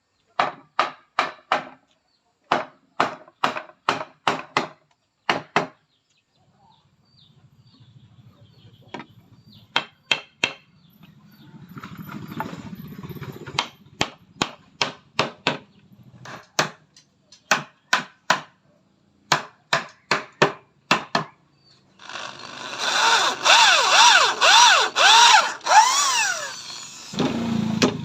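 Hammer blows on wood in quick runs of several strikes, then a power tool running for about five seconds near the end, its pitch swinging up and down.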